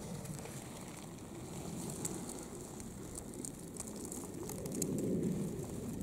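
Footsteps crackling and rustling through short grass and dry fallen leaves, over a low wind rumble on the microphone.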